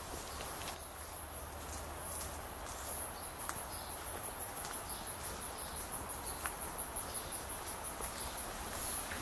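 High-pitched insect song in the bush canopy, a rapid, even pulsing that grows stronger about three seconds in.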